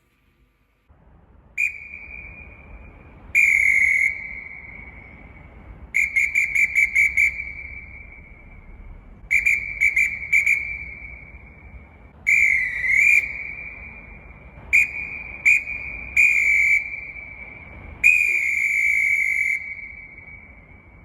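Fox 40 Superforce pealess referee whistle blown in a series of sharp, high single-tone blasts: short and long blasts, a quick run of rapid toots, and one blast whose pitch wavers. Each blast leaves a long echoing tail.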